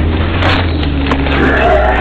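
Car engine running with a steady low drone inside the cabin as the car reverses, with a sharp crack about half a second in and a brief wavering higher-pitched sound near the end.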